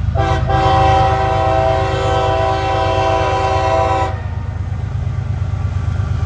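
Diesel freight locomotive's air horn: a short toot, then a long multi-note chord held for about four seconds that cuts off sharply. Under it runs the steady low rumble of the passing train's diesel engines.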